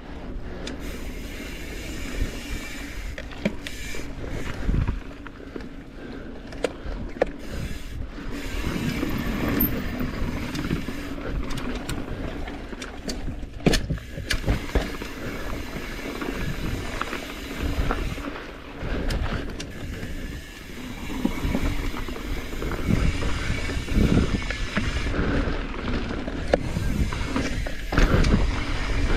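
Mountain bike being ridden over a rough, technical dirt trail: a continuous rumble and rattle from the tyres and frame, broken by frequent sharp knocks as it hits bumps.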